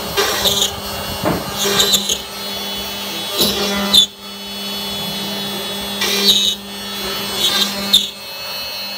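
CNC router spindle running with a steady whine while its bit cuts the edge of a wooden board, the cutting noise swelling in short, louder bursts every second or two.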